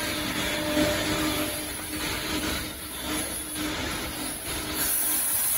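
Steady mechanical hum with a noisy wash of machinery sound, a faint low tone holding through it and a high hiss that grows stronger near the end.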